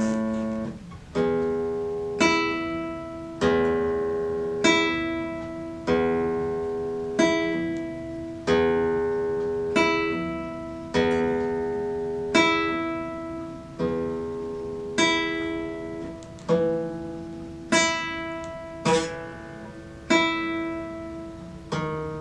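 Classical guitar played in slow, evenly spaced plucked chords, about one every second, each left to ring out before the next.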